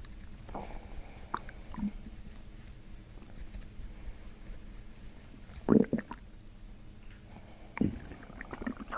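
Gurgles from a person's stomach and intestines: short, scattered squelches, with the two loudest about six and eight seconds in.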